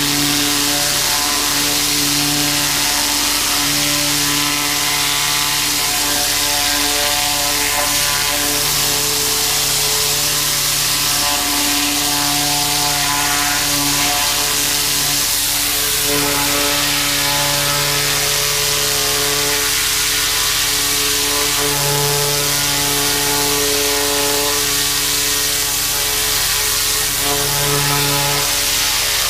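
A 4,000 PSI pressure washer running steadily, its engine note under the loud hiss of the zero-tip water jet blasting a deer hide.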